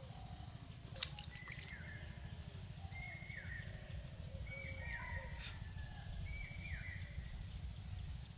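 Birds calling again and again in short calls, each a held note that drops at the end, over a steady low rumble. A single sharp click comes about a second in.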